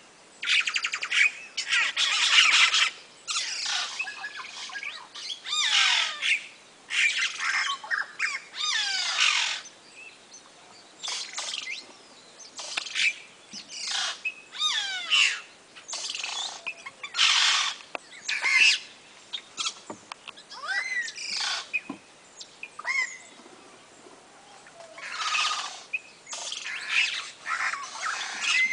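A colony of birds that nest in hanging woven nests, calling together: waves of loud, varied chattering and squawking calls with quick sliding notes, broken by short lulls, the longest a few seconds before the end.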